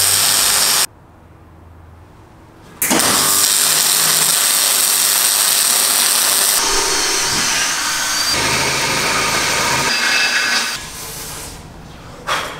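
Electric arc welding on aluminium sheet, a loud steady hissing noise from the arc. It stops just under a second in, starts again about two seconds later and runs for about eight seconds before ending.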